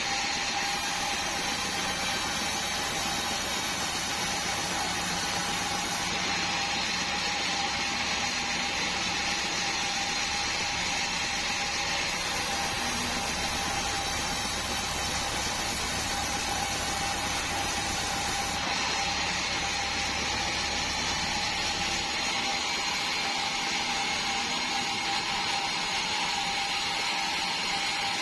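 Band sawmill running steadily through a large Meranti log, with a constant high whine over the machine noise. Near the end the low rumble underneath drops away.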